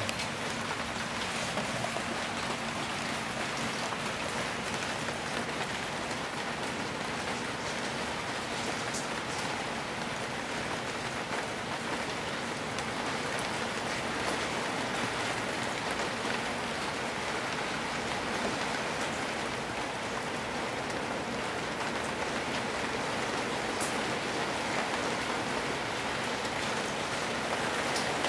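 Steady rain falling on roof tiles and a paved courtyard, with a few sharper single drops standing out now and then.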